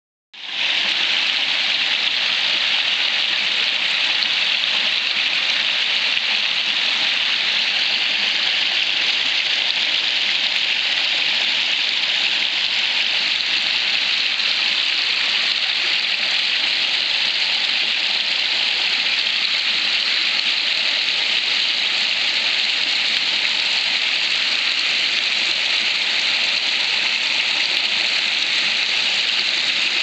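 A shallow rocky creek running steadily over stones and small cascades, an even hiss of flowing water.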